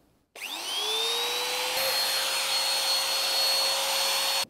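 Compact trim router switched on: its motor spins up with a rising whine about a third of a second in, then runs at a steady high-pitched whine with a strong hiss, trimming excess fairing compound from around a port-light cutout in a fibreglass cabin side.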